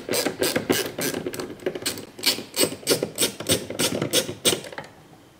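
Ratchet turning a T15 Torx bit, its pawl clicking evenly at about three clicks a second as it backs out a small Torx bolt. The clicking stops shortly before the end.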